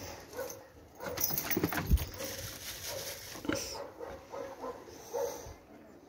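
A dog making short, soft whines that repeat every half second or so, with a few knocks and a low thump in the first two seconds.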